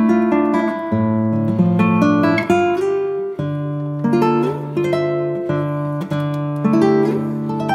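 Background instrumental music: plucked acoustic guitar playing a melody over held bass notes.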